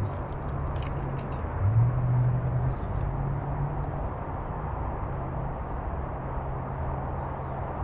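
Outdoor ambience: a steady low hum over a constant noisy wash, with faint scattered bird chirps. The hum rises briefly in pitch and level about two seconds in.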